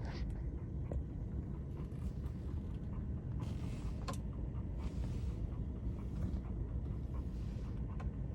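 Ford Ranger pickup running, a steady low rumble with a few brief hissing swells and faint clicks: an unidentified noise that the owner suspects may come from a faulty sensor.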